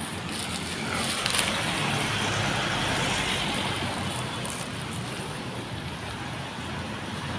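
Street traffic: a car passes close by, its tyre and engine noise swelling about a second in and fading away over the next few seconds.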